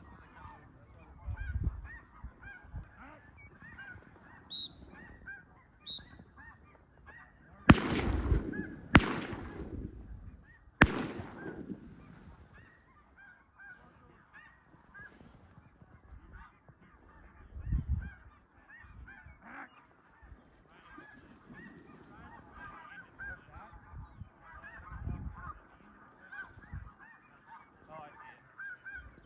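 A dense chorus of snow goose honking goes on throughout. About eight seconds in come three shotgun shots, the first two a little over a second apart and the third about two seconds later.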